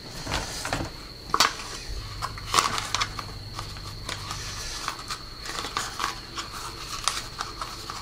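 Clicks and taps of hard plastic: a robot vacuum's clear plastic dust box and its filter being handled and fitted together by hand. Scattered light clicks, with louder knocks about one and a half and two and a half seconds in.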